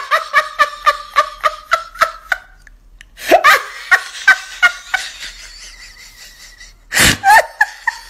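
A person laughing hard in a fast run of repeated 'ha' bursts that slows and fades over about two and a half seconds, then another run of laughter about three seconds in, and a short loud burst near the end.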